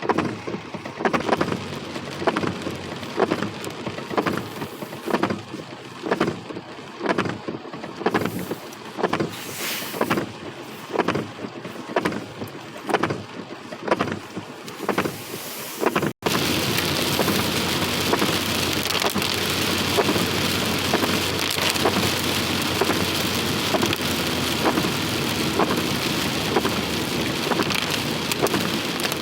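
Heavy rain falling. For the first half a regular beat repeats about every two-thirds of a second over the rain. After a sudden cut about halfway through, steady heavy rain falls on a surface, with many small drop hits.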